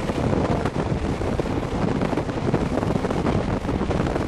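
Wind buffeting the microphone, mixed with the steady road noise of a vehicle driving along.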